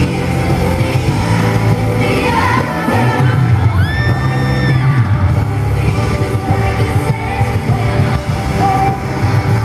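Live pop concert sound through a phone microphone: female vocal group singing over a loud band with heavy bass, while fans yell and scream along. One shrill held scream stands out for about a second, around four seconds in.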